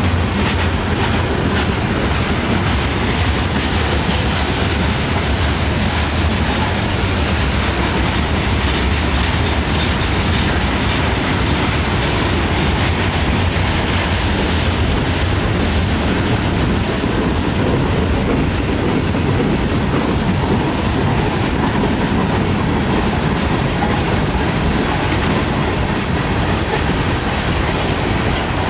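Freight train cars rolling past close by: a steady rumble of steel wheels on the rails, with many quick clicks over it.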